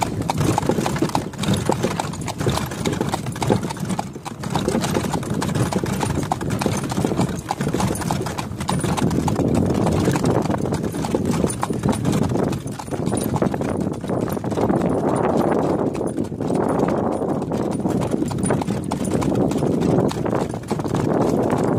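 A horse's hooves clip-clop steadily on a paved road as it pulls a cart, over a steady rumble of the cart rolling.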